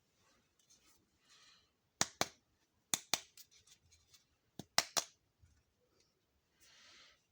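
Small toy kitchen pieces being handled: sharp clicks and taps in two quick clusters, about two seconds in and again around five seconds, with brief rustles before and after.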